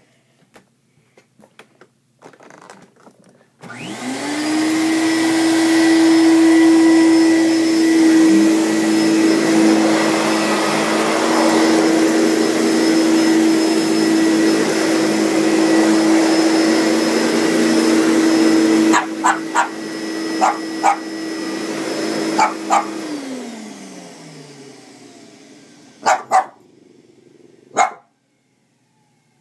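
Vacuum cleaner switched on, its motor spinning up to a steady whine with a loud rush of air, running for about twenty seconds, then switched off and winding down. A Boston terrier barks several times near the end of the run and twice more after the motor has stopped.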